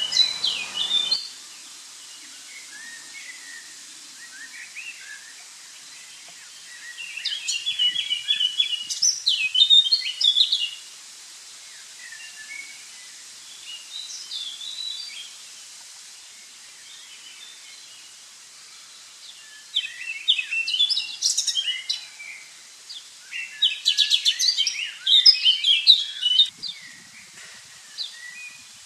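Songbirds singing outdoors in several bursts of quick, varied chirping phrases, with quieter gaps in between. A fuller background hiss cuts off about a second in.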